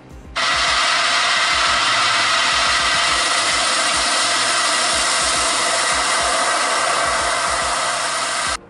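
Loud, steady rushing noise, even in level, that starts abruptly just after the start and cuts off abruptly shortly before the end.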